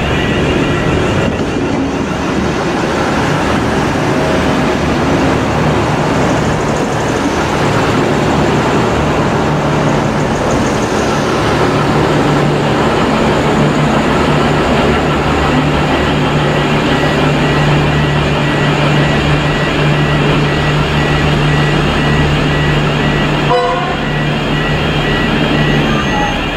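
V/Line VLocity diesel railcar running into the platform and passing close, its underfloor diesel engines giving a loud, steady low drone over wheel and rail noise. The drone holds through the second half and stops near the end.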